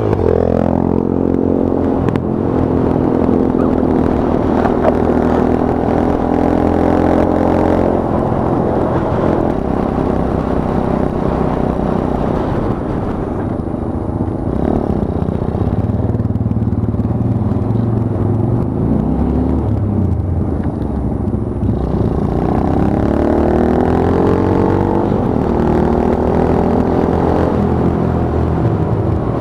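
Monkey bike's small engine running while being ridden: it revs up just after the start, holds a steady pitch for several seconds, then rises and falls in pitch several times later on as it accelerates and eases off.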